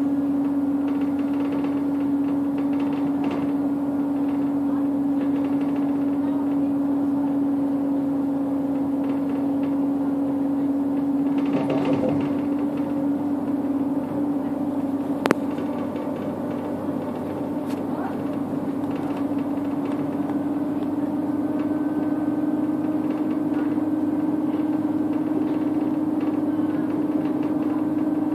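Bus interior at cruising speed: the engine and drivetrain give a steady low drone over road and tyre noise. A single sharp click comes about fifteen seconds in.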